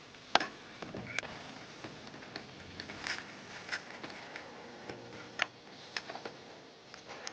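Scattered light clicks and taps as a spark plug is fished out of its well with a magnet pickup tool, the sharpest about a third of a second in.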